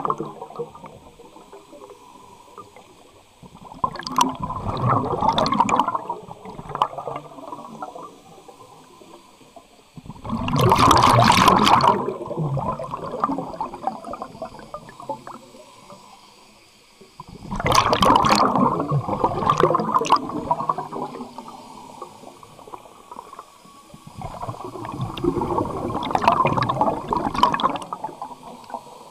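Scuba diver breathing underwater through a regulator: exhaled air bubbles out of the exhaust in four bursts about seven seconds apart, each lasting two to four seconds, with a low murmur between breaths.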